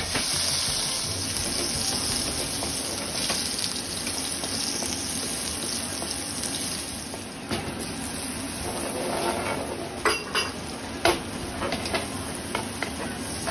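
Food sizzling in a frying pan as it is stirred, with a utensil knocking against the pan several times in the second half.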